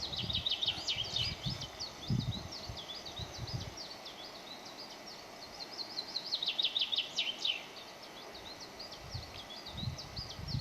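Songbirds singing continuously outdoors: a steady string of short high chirps with rapid trills about a second in and again around seven seconds. Low rumbles of wind on the microphone come and go in the first few seconds and near the end.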